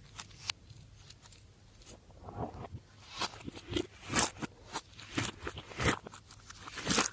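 Slime being squeezed and pressed by hand, popping and crackling: faint scattered clicks at first, then from about two seconds in a run of louder sharp pops, roughly one or two a second.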